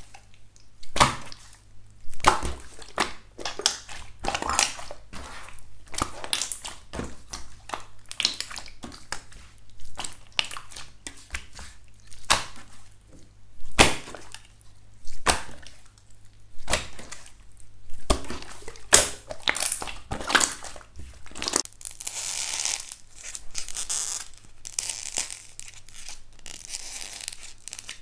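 Clear slime pressed and stretched by fingers, giving sharp pops and crackles, a loud pop every second or so among smaller clicks. About three-quarters of the way through it gives way to a denser, softer crinkling.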